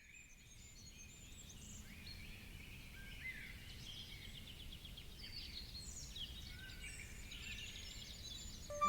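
Faint birdsong outdoors: several small birds chirping and giving quick trills over a low, steady background hiss.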